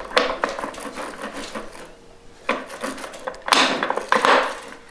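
Metal parts clicking, rattling and scraping inside a 1995 GM 4L60E automatic transmission case as the sprag race is worked out by hand, with a louder stretch of rattling about three and a half seconds in.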